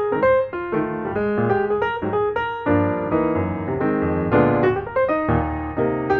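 Background piano music, a flowing run of notes.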